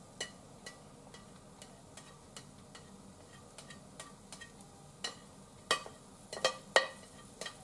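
A spatula scraping and tapping cabbage between a ceramic plate and a frying pan, making light clicks about twice a second, then a few louder knocks near the end.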